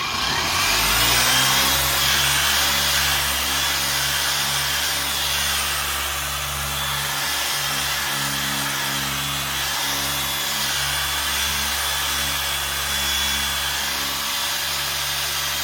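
Dual-action (DA) polisher spinning up and running steadily as it buffs glaze into a cloudy plastic headlight lens.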